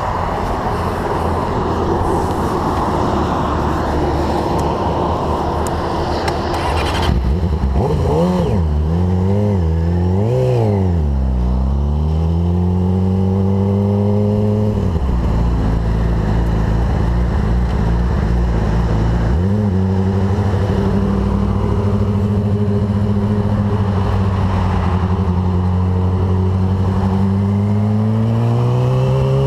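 A steady rush of freeway traffic and wind, then a sportbike engine pulling away about a quarter of the way in. The revs rise and fall a few times, then climb through the gears with two upshifts, about halfway through and about two-thirds through, and climb again near the end.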